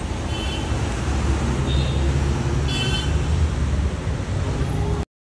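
Street traffic: a steady low rumble of vehicle engines and road noise as a car pulls away, with a few brief high-pitched chirps over it. The sound cuts off abruptly about five seconds in.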